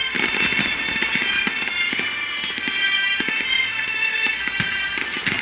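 Aerial fireworks shells bursting in quick succession, a continuous run of bangs and crackles, with music playing steadily over them.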